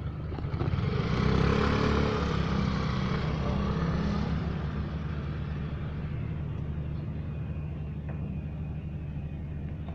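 A motor scooter's engine revs as it pulls away, loudest a second or two in, then fading as it moves off, over a steady low hum.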